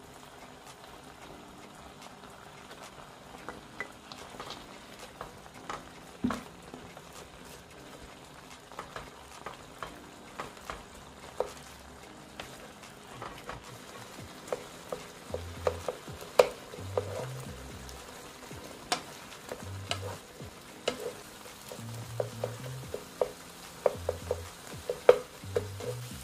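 Thick, chunky sauce sizzling in a skillet while a wooden spatula stirs it, with sharp knocks and scrapes of the spatula against the pan. The knocks come more often in the second half.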